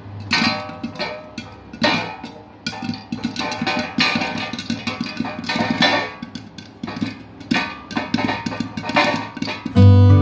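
Background music: plucked strings with light percussion, irregular pitched notes every half second or so.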